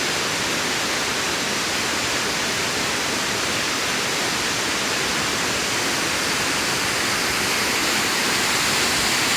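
Waterfall running loudly: a steady, even rush of falling water.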